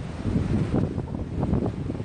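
Stormy sea wind buffeting the microphone: a gusty, low rumbling rush, with the surf of the sea behind it.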